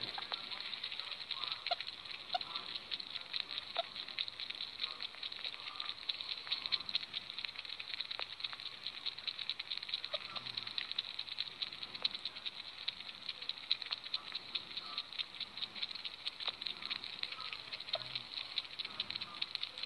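Sugar gliders resting in a fleece pouch making their contented sounds: a steady, fast crackle of tiny clicks, with a few faint short squeaks.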